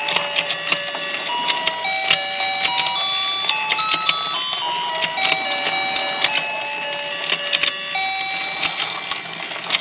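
A toy rotating fishing-pond game plays its built-in electronic tune, a simple beeping melody of one note at a time. Behind it comes rapid, irregular plastic clicking from the turning board and the fish opening and closing their mouths.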